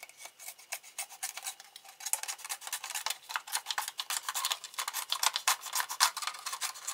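Thin plastic soda bottle crackling and crinkling in rapid, irregular clicks as it is being cut apart by hand.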